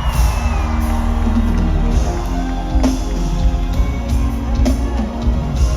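Live concert music played loud through a PA: heavy bass with sustained instrumental notes, crowd noise mixed in.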